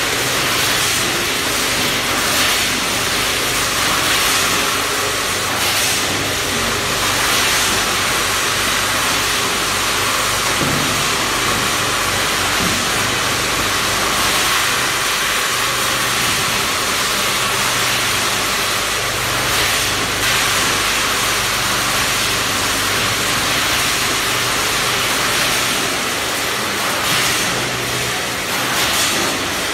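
Vertical packing machine and 14-head weigher line running: a steady hiss over a low, even hum.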